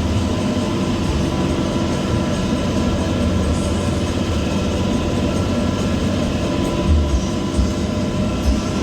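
Bus engine running under way through a loud aftermarket racing exhaust, a steady deep growl, heard from the rear seats inside the cabin, with a few heavier low pulses about seven seconds in.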